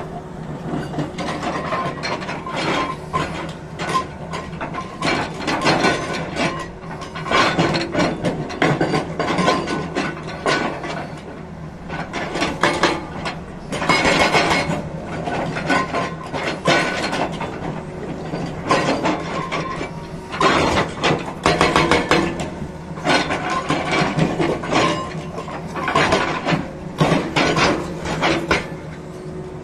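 Hydraulic rock breaker on a Tata Hitachi excavator hammering rock with a rapid clatter of blows, in repeated bursts with short pauses, over the steady running of the excavator's engine.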